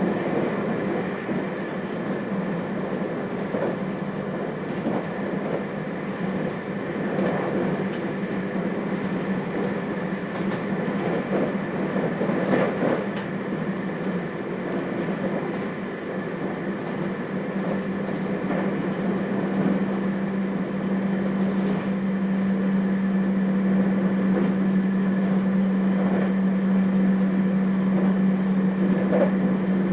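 Inside the motor car of a JR Hokkaido 721 series electric train running along the line: wheels rumbling on the rails with occasional joint clacks, under a steady electrical hum that grows louder about halfway through.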